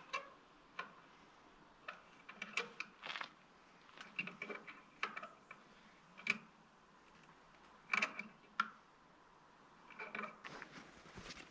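Irregular small clicks and taps, a few with a brief high ring, from hand work fitting hardware to the edge of a wooden plank door.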